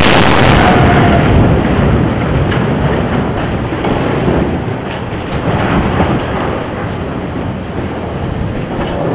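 Precision cutting charges detonating on the steel bridge truss: it opens with a loud blast, followed by a long rolling rumble with scattered cracks as the cut steel span collapses and crashes into the water, slowly dying down. The sound cuts off suddenly near the end.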